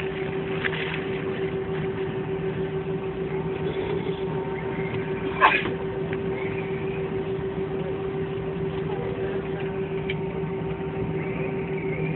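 Steady airliner cabin hum from the engines and air conditioning at low power, with a single sharp knock about five and a half seconds in.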